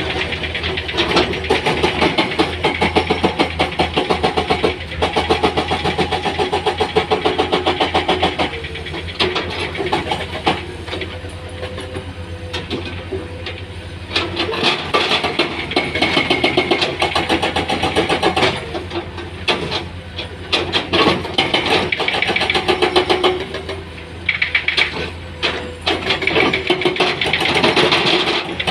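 Heavy diesel engine of earth-moving machinery running with a rapid clatter, its sound rising and falling in stretches of a few seconds as the load changes.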